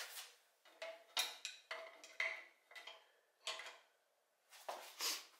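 A string of faint metal clinks and taps, some ringing briefly, as a knife blade and its fittings held in a clamp are lowered into an etching tube and knock against it, ready for the final etch.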